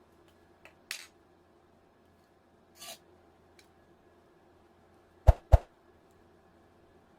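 Scattered small clicks and a brief scrape of tools and small parts being handled during a headset repair, with two louder sharp knocks close together about five seconds in.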